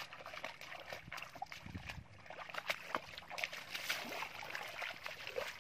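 Bare feet squelching and splashing through shallow muddy water, a run of irregular wet sloshes and sharp little slaps.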